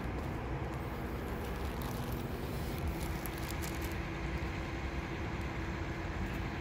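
A large vehicle engine idling: a steady low rumble with a constant drone.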